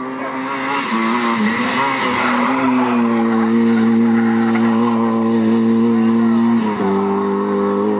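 Rally car engine running at high, fairly steady revs. Its pitch dips about a second in, holds, and shifts again near the end, over a rushing haze of tyre noise.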